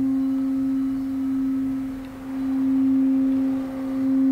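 Frosted crystal singing bowl sounding one steady, nearly pure tone as its rim is circled with a mallet. The tone wavers slowly in loudness, dipping about two seconds in and again near the end.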